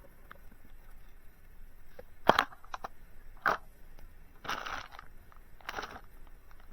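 Sound effects being made for recording: a sharp click, then three short crunching noises about a second apart.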